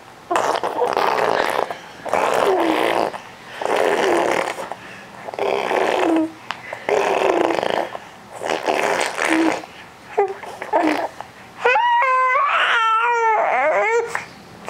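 Infant making a run of breathy, rasping vocal noises, each about a second long with short pauses between. Near the end they turn into a higher, wavering pitched whine, the start of a fussy cry.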